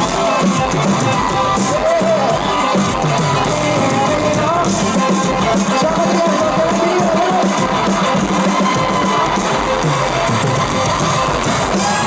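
A pop-rock band playing live: a male singer singing into a handheld microphone over electric guitar and bass guitar, with crowd noise beneath.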